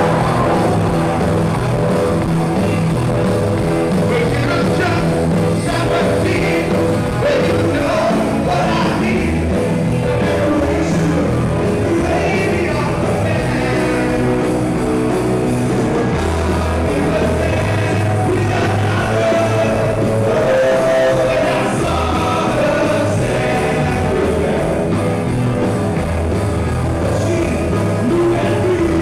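Rock band playing a song with a singer and electric guitars.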